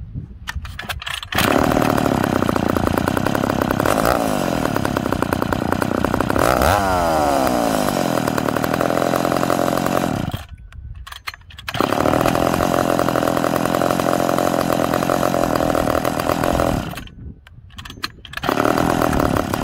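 Ported McCulloch Super Pro 70 two-stroke chainsaw started and idling, with a sharp rev about six seconds in that winds down slowly to idle. Its big flywheel and crankshaft keep spinning for a while. It stops and restarts twice, catching quickly each time on its new electronic ignition module.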